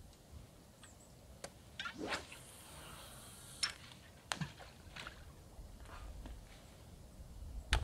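Quiet sounds of a feeder rod cast on a spinning reel: a soft hiss of line running off the spool, then a few sharp clicks from the reel as it is closed and the line tightened.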